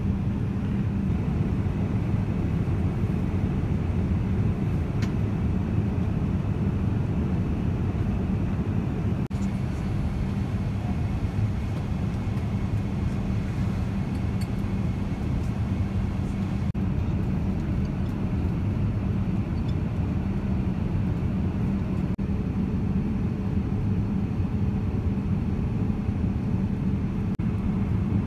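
Steady cabin noise of a Boeing 787-9 airliner in cruise: an even, low rumble of engines and airflow heard from a passenger seat.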